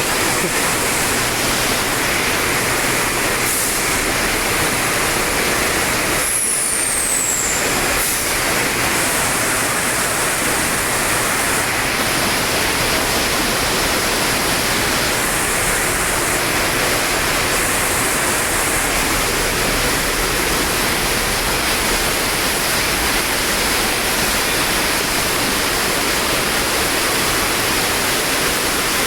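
Very heavy rain pouring down in a steady, loud hiss.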